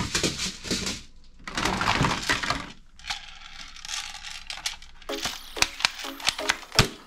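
Hard plastic toy guns clattering and knocking together as they are rummaged in a box and a toy rifle is lifted out, in two busy bursts of clatter. Then, from about five seconds in, a quick run of sharp plastic clicks, about three a second.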